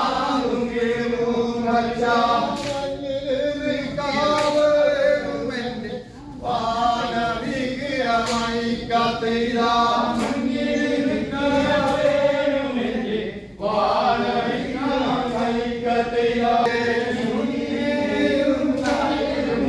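A group of Nilgiri Kurumba men chanting a folk song together in unison, in phrases of about seven seconds with a short breath-break between them.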